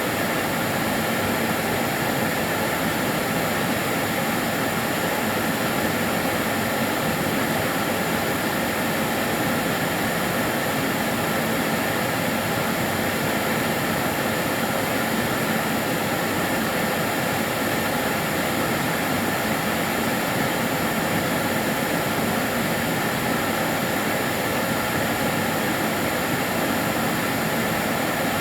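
Karcher DS 6 Premium water-filter vacuum cleaner running steadily, an even whooshing noise with a faint motor whine and no change in speed.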